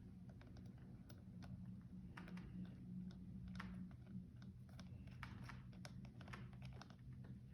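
Faint, irregular light clicks and taps of scooter wheel parts being handled during reassembly, over a low steady hum.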